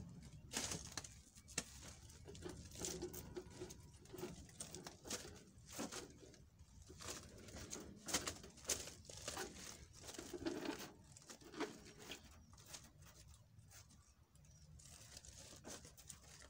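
Irregular rustling and clicking of plastic wire mesh being pressed down and fitted over a bed of gravel chippings by a gloved hand, the stones shifting underneath.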